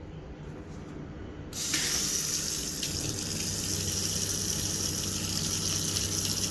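A water tap is turned on about a second and a half in and runs steadily into a sink.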